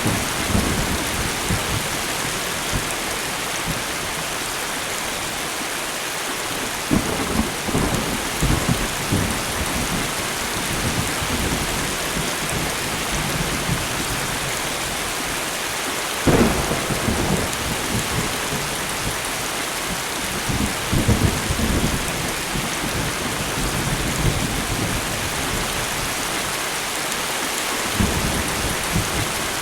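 Steady light rain hissing on surfaces, with thunder rumbling low several times. A sharper, louder thunderclap comes about halfway through.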